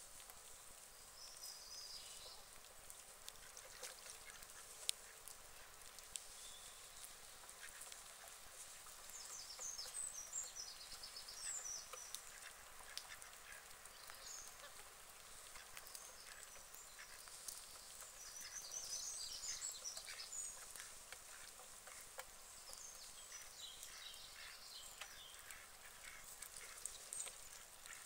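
White domestic ducks calling faintly with short quacks, in several bouts of rapid calls.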